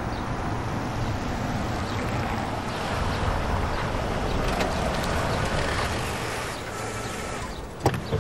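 Steady rushing outdoor noise, then a car door shutting near the end with two sharp thuds in quick succession.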